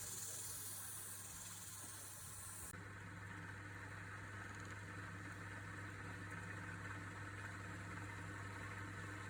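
Wood lathe motor running with a steady low hum. A high hiss over it cuts off abruptly about three seconds in.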